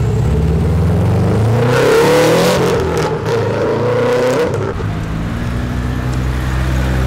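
Car engines: a Subaru Impreza WRX's turbocharged flat-four is revved hard as the car pulls away. The sound swells about two seconds in, with a few sharp cracks near its peak, then drops back about five seconds in to the low, steady running of another car's engine.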